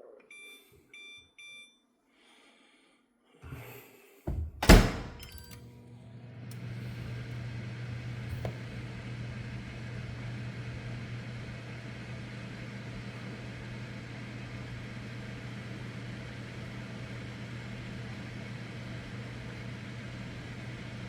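Zline microwave oven: three short keypad beeps, a loud thump about four and a half seconds in, then the oven starting up and running with a steady low hum. The oven runs but does not heat.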